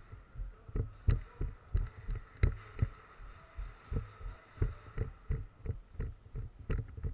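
Footsteps of a person moving quickly, heard as a regular run of dull thuds through a body-worn camera, about three a second.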